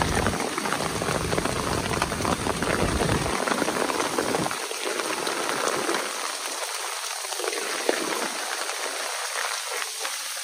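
Heavy downpour of rain, a dense steady hiss and patter of drops hitting the ground and surfaces. A low rumble sits under it for the first few seconds, then stops about halfway through.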